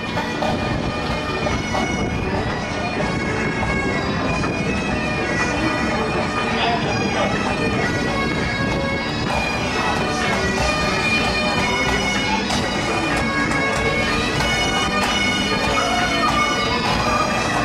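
A marching pipe band of Great Highland bagpipes playing a tune together over their steady drones.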